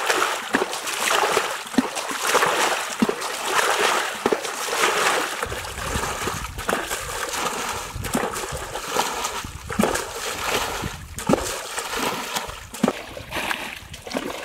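Muddy water splashing and sloshing in repeated surges, as it is bailed and poured out of a bucket onto a net. A low rumble joins about five seconds in.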